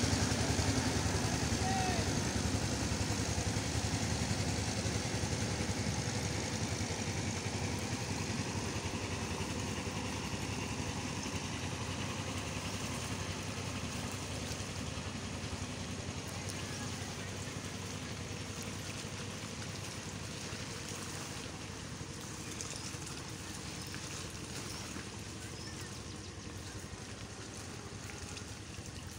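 Engine of a motorized wooden river boat running, slowly fading as the boat moves away.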